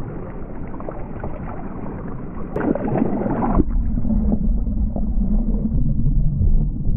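River water sloshing and splashing at the surface, then a little over halfway through the sound drops to a muffled, low underwater rumble and bubbling as the microphone goes under the water.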